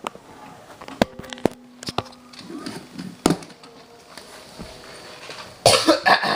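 Several sharp clicks and knocks, as of a VHS tape and its case being handled, with a brief steady tone about a second in. A loud short burst comes just before the end.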